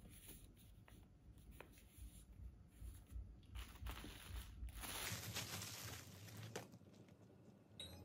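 Faint rustling and crinkling of bubble wrap and packaging being handled, with a few small clicks and a couple of louder crinkling stretches in the middle.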